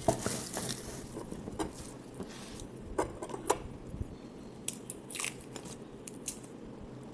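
Dry garlic skins crackling and snapping as cloves are pulled apart and peeled by hand, a string of short, irregular crunchy clicks.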